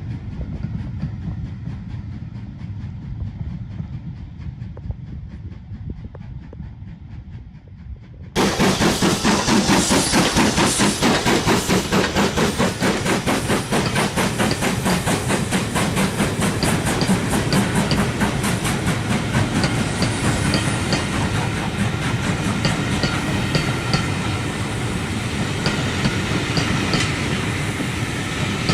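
A low rumble, then about eight seconds in a steam-hauled train suddenly sounds close by. Its wheels clatter rapidly and evenly over the rail joints with a steady rush as it passes.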